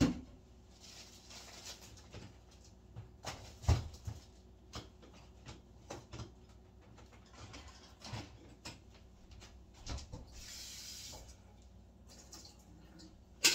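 Scattered faint clicks and knocks of small household handling noises, with one louder knock about four seconds in and a brief hiss around ten and a half seconds in.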